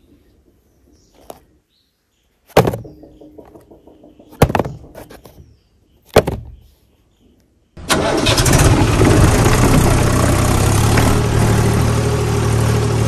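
Three sharp knocks, then about eight seconds in a tractor engine starts and runs loudly and steadily with a low hum.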